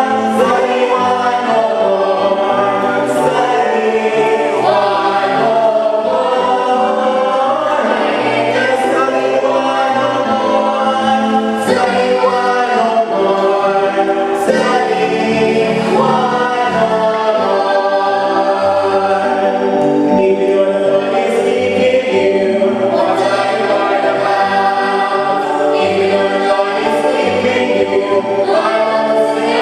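Choir singing a gospel hymn.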